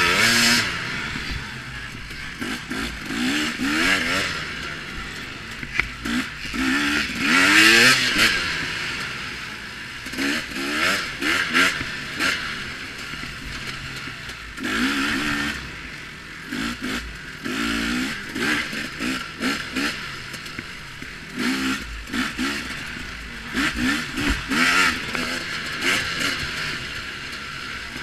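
KTM 250 XC two-stroke dirt bike engine, heard from on the bike, revving up and down again and again as the throttle is opened and shut between turns on a rough trail.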